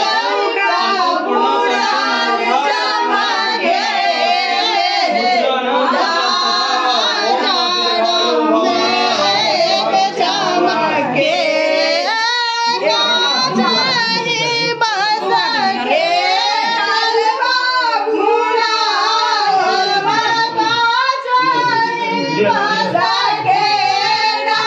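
A group of women singing a traditional folk song together in unison, voices only with no instruments.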